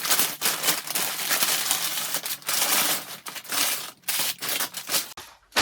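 Takeaway food packaging being unwrapped and handled, a continuous rustling crinkle of paper with many small crackles, easing off briefly near the end.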